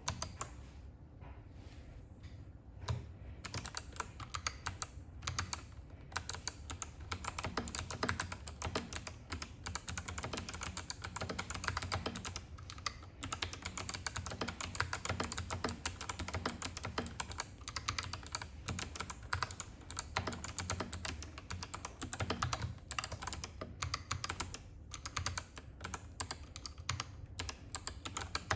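Mechanical keyboard with stock Kailh Box Navy clicky switches being typed on: a few scattered keystrokes, then fast continuous typing from about three seconds in, with a couple of short pauses.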